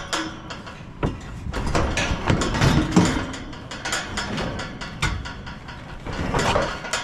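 Steel pipe livestock panels and gate rattling and clanking in a run of irregular knocks and clatters.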